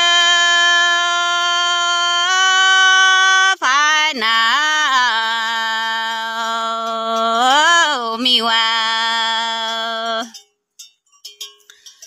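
A single voice singing a Red Dao (Iu Mien) folk song in long held notes, with wavering turns between them. The voice breaks off about ten seconds in.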